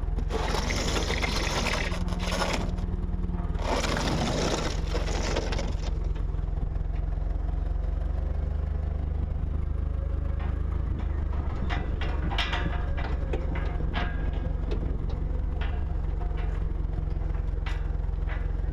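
A steady low mechanical drone runs throughout. Two loud bursts of hissing noise fill the first few seconds, and scattered sharp clicks and knocks follow.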